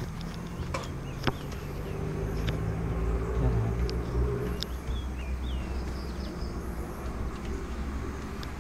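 A distant engine's low hum, swelling about three seconds in and easing off after, with a few light clicks.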